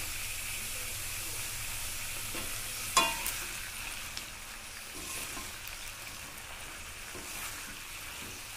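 Flat beans and chicken skin sizzling in oil in a kadai, stirred with a wooden spatula. About three seconds in, the spatula strikes the pan once with a sharp ringing knock, and a few lighter scrapes and taps follow.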